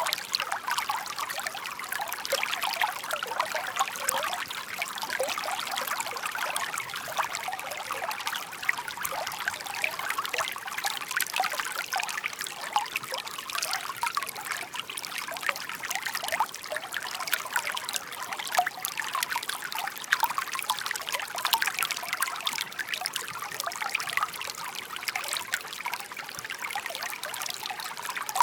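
Shallow park stream trickling and babbling over stones, a steady stream of small bright splashes and gurgles with little low rumble.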